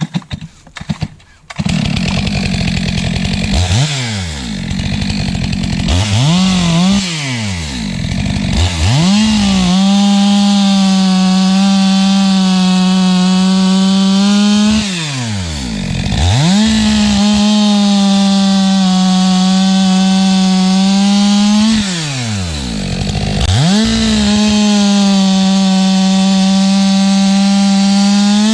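Stihl MS 462 two-stroke chainsaw with a freshly hand-filed chain, bucking logs. It starts up about a second and a half in and is blipped a few times, then held at full throttle through three long cuts at a steady pitch, dropping back to idle briefly between them.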